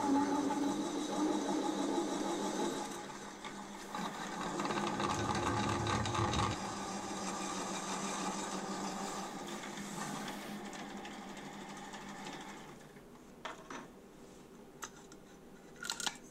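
Milling machine running, its 20 mm twist drill cutting through thin-walled steel box section; the motor hum stops about 13 seconds in. A few sharp metal clicks follow as the steel tube is handled.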